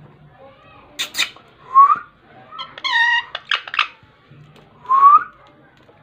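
Female Indian ringneck parakeet calling: a few harsh squawks and chattering calls, with two short, loud rising whistles about three seconds apart.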